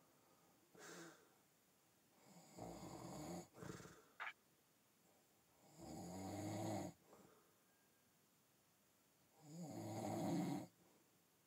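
Faint snoring: a rough, pitched breath lasting about a second, repeating about every three to four seconds. There is a short rising squeak about four seconds in.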